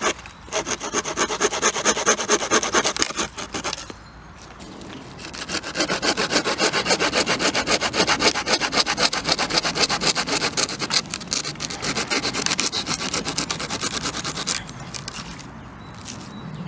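Hand pruning saw cutting through a dead fallen branch with quick, even back-and-forth strokes, in two bouts with a short pause about four seconds in. The sawing stops a couple of seconds before the end.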